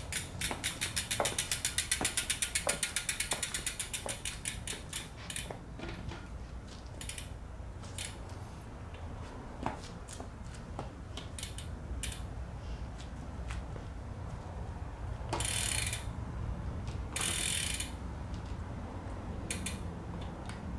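Road bike's rear freewheel ticking: a fast run of clicks that slows and spreads out over the first five seconds as the wheel coasts, then scattered single clicks, and two short buzzes of rapid ticking about two seconds apart in the second half.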